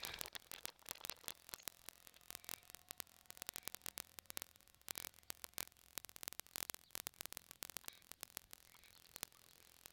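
Faint crackling static: many irregular sharp clicks over a low hiss, thinning out near the end.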